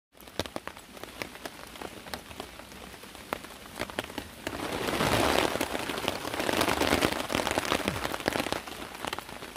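Raindrops tapping irregularly on a tarp overhead. From about four and a half seconds in, a louder fabric rustle as a man sits down into a hammock and settles, fading out at about eight and a half seconds.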